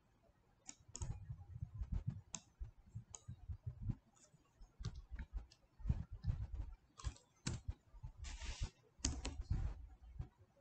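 Computer keyboard and mouse clicks: irregular, scattered key presses and button clicks, with a brief half-second rustle a little after eight seconds in.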